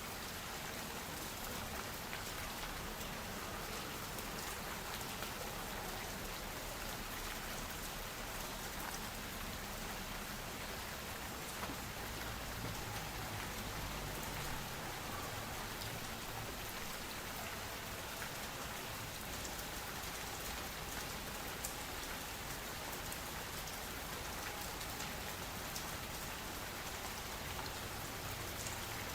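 Steady rain falling, a dense, even patter of drops, with a faint low hum underneath.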